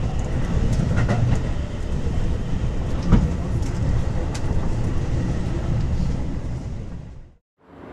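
Metro train running on the rails: a steady low rumble with scattered clacks from the wheels, one louder knock about three seconds in. It fades out near the end into a moment of silence, and the next recording begins.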